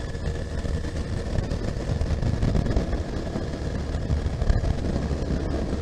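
Honda CB1300SF's inline-four engine running under way, mixed with wind noise on the helmet-mounted microphone.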